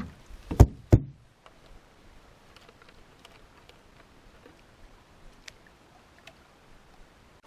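Two sharp knocks on the lightweight solo canoe, about half a second apart, then quiet with faint scattered ticks.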